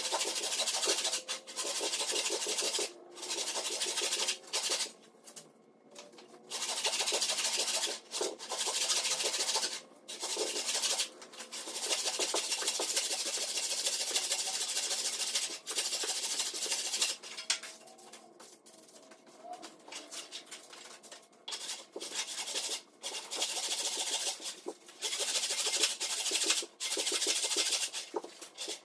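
Old hand saw ripping lengthwise down a log, its teeth rasping through the wood in runs of back-and-forth strokes broken by short pauses, with a quieter spell about two-thirds of the way through.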